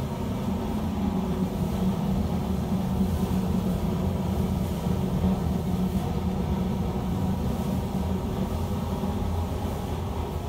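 Steady low mechanical hum with a few faint steady tones above it, unchanging throughout.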